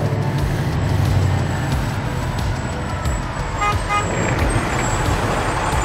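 Heavy semi-truck engine rumbling steadily, with a quick run of electronic beeps just before the middle of the clip.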